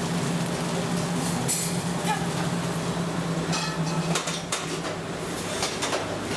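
Busy restaurant kitchen ambience: a steady low hum that stops about four seconds in, under scattered clicks and clatter of utensils and dishes.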